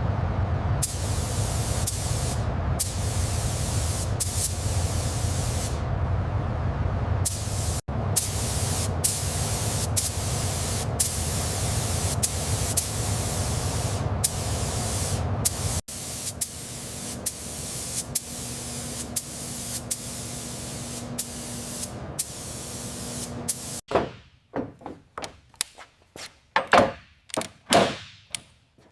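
Steady, loud spraying hiss over a low hum, in three stretches that cut off suddenly and restart. In the last few seconds it gives way to a run of short knocks and swishes.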